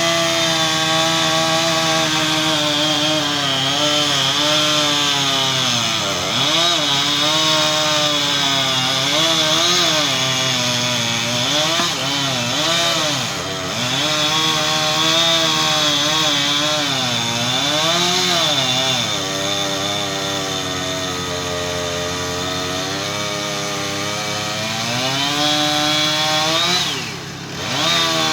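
Gas chainsaw cutting through a tree trunk, its engine at high revs with the pitch repeatedly sagging and recovering as the chain bites into the wood. Near the end it briefly comes off the throttle, then revs back up.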